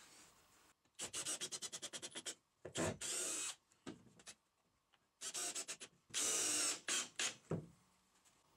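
Cordless drill working on the wooden frame in two spells. Each spell is a run of rapid, even clicks, about ten a second, followed by a second or less of steady motor whir.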